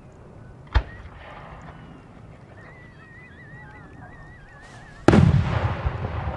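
Fireworks: a single sharp bang less than a second in, then a wavering whistle for about two seconds, then a much louder shell burst about five seconds in with a long rumbling tail.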